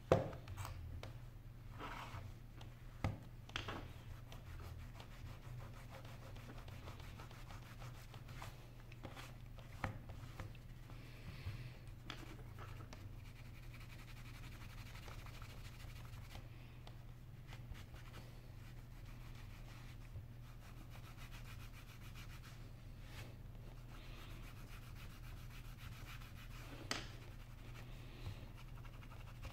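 Faint rubbing of a cloth wiping the glass front of an iPhone 5. A sharp tap comes right at the start, and a few light clicks follow later.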